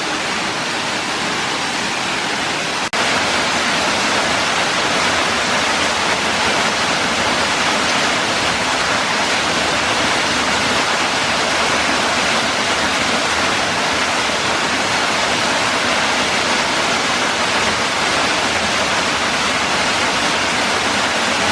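Steady rushing of a waterfall about 25 feet high plunging into a pool, an even wash of falling water that steps up slightly in level about three seconds in.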